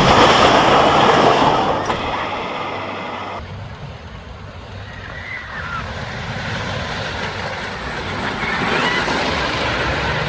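Wooden roller coaster train running at speed, with air rushing over the rider's microphone, then slowing to a quieter rolling rumble about three seconds in as the ride ends, with a few faint high squeaks.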